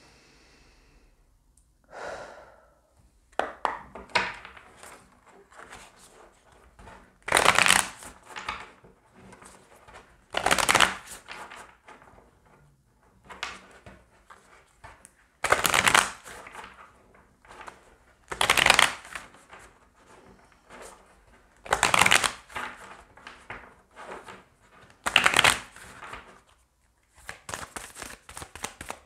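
A deck of Wild Unknown Animal Spirit oracle cards being shuffled by hand: loud swishes of the cards slid through each other about every three seconds, soft rustles and taps of card edges between them, and a quick run of fast card flicks near the end.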